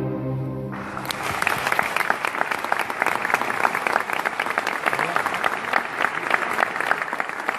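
An orchestra's final chord fades away in the church's reverberation, and about a second in the audience breaks into steady applause.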